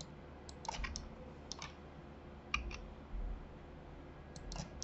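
Computer mouse and keyboard clicks: four small clusters of short, sharp clicks, mostly in pairs, spread over a few seconds. There is a dull low bump about three seconds in.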